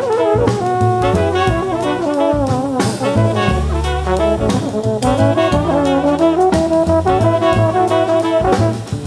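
Small jazz band playing an instrumental passage: saxophone, trumpet and trombone sounding together in held notes over double bass and drum kit with cymbal strokes.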